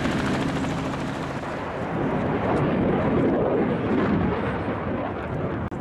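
A light helicopter's rotor and engine hum steadily at first. About two seconds in, this gives way to the loud, rumbling noise of a fighter jet flying by, which swells and then eases toward the end.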